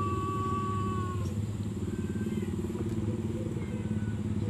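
A cat's long drawn-out meow, sliding slightly down in pitch and ending about a second in, over the steady low rumble of an engine running.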